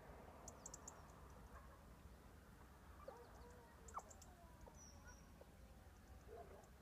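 Faint, distant scent hounds baying, a few calls about three seconds in and again near the end, with short high chirps of small birds.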